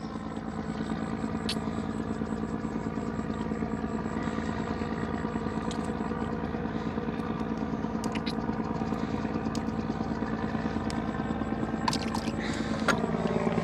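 Small boat engine running steadily at an even speed.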